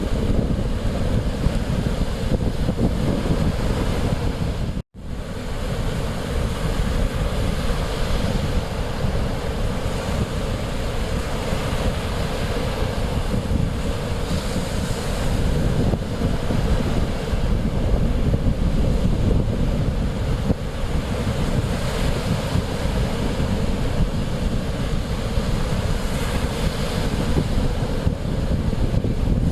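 Mediterranean Sea waves washing onto the shore, with wind buffeting the microphone in a constant low rumble. The sound cuts out for a split second about five seconds in.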